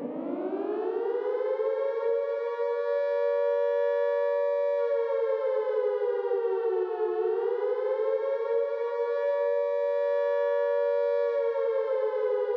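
Air-raid siren with two close tones sounding together, still rising in pitch as it winds up for the first second or so, then holding a steady pitch, with a dip and return about seven seconds in and a slight fall near the end.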